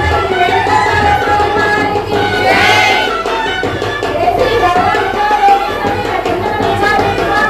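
Indian devotional music: tabla drumming under a continuous melody.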